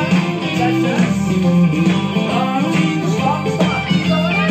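Country music with guitar.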